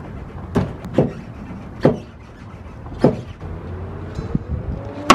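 About five hard knocks, irregularly spaced a second or so apart, as a car wheel stuck on its hub is struck to break it loose; the last knock is the loudest.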